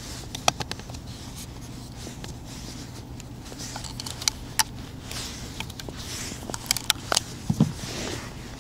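Close rustling with scattered sharp clicks and ticks as small fishing tackle is handled in the hands; the clicks come irregularly and bunch up in the second half.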